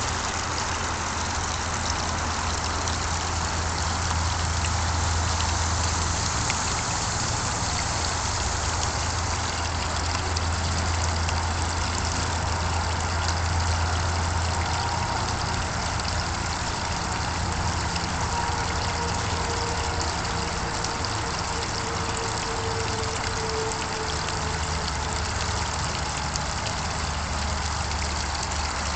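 Garden pond waterfall splashing over rocks, a steady rush of water, with a small fountain spraying into the pond. A low steady hum runs underneath.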